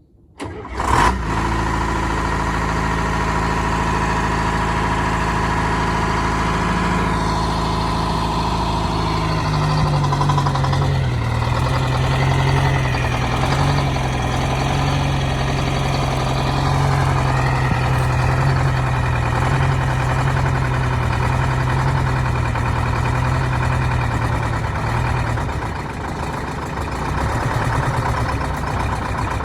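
The diesel engine of a 1971 Insley excavator starts abruptly about half a second in and runs steadily. Around ten seconds in its note drops and shifts, with higher whines rising and falling for several seconds as the machine is worked.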